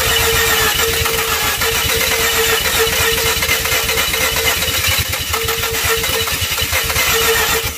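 Mazda RX-8's 13B rotary engine cranking on its starter: a steady starter whine over fast, even pulses, without catching, stopping suddenly near the end. The engine fails to fire, which the mechanic puts down to the used engine being flooded.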